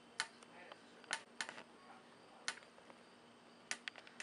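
Faint, irregular clicks and taps, about seven, unevenly spaced over a few seconds, with a couple close together near the end, against quiet room tone.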